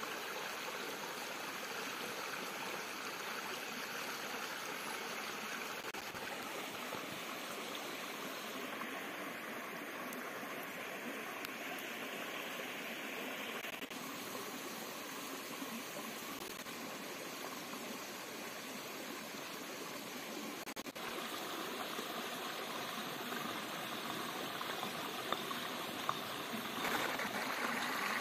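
A stream of water running steadily, a continuous rushing and trickling whose tone changes a little about halfway through and again about three-quarters through.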